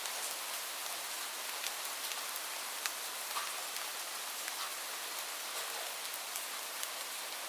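Light rain falling steadily, a soft even hiss with scattered individual drops ticking.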